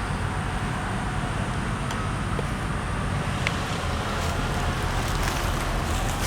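Steady low rumble of engines and machinery, with a faint, slowly rising whine near the end.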